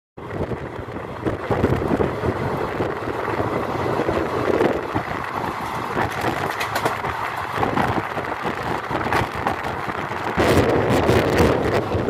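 Passenger train coaches running at speed, heard from an open door: a steady rumble of wheels on the rails with scattered sharp clicks and wind on the microphone, growing louder about ten seconds in.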